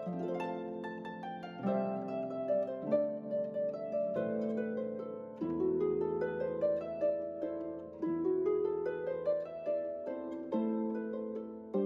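Background instrumental music: a slow melody of plucked notes over held chords.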